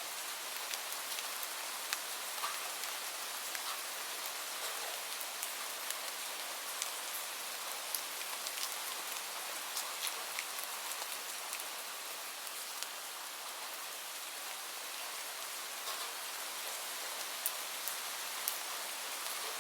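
Steady rain falling, a continuous hiss with individual drops ticking sharply now and then.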